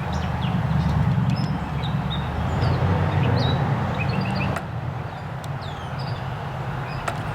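Small birds chirping with many short, high, falling calls over a steady low hum that eases off about halfway through. Two sharp clicks come near the middle and near the end.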